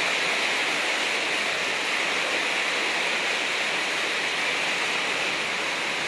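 Heavy storm rain pouring steadily onto a corrugated metal roof in strong wind: an even, unbroken hiss.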